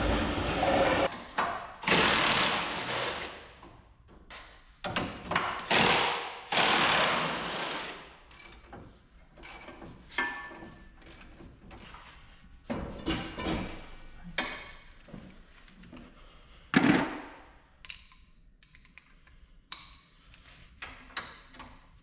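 Metal clanking, knocking and ratcheting of hand tools and steel planter parts as a corn planter's row units are unbolted. A few longer noisy bursts of about a second each come in the first eight seconds, then scattered short clicks and knocks, with one sharp knock about seventeen seconds in.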